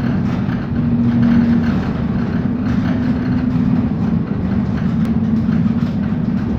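Steady rumble with a constant low hum inside a moving gondola lift cabin, as it rides along the cable.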